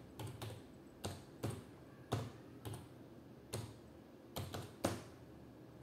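Typing on a computer keyboard: a string of irregular keystroke clicks, some in quick pairs, with short pauses between them.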